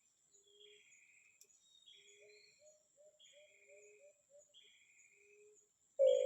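Faint bird calls: a short low note with higher chirps, repeating about every second and a half, and a quick run of short low notes in the middle, over a steady high insect-like hum. Music comes in just before the end.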